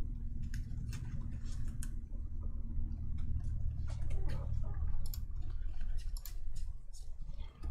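Trading cards being handled and set down on a table: scattered light clicks and taps over a steady low hum.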